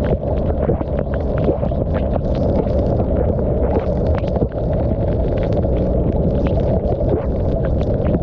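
Wind rushing over the mounted GoPro's microphone, mixed with the running noise of a Yamaha TMAX scooter ridden along, steady throughout. Frequent short ticks of rain striking the camera are scattered over it.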